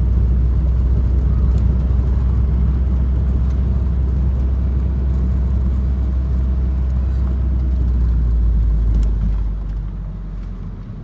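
Car interior road noise: a steady low rumble of the engine and the tyres on a gravel road, easing off about nine seconds in as the car slows.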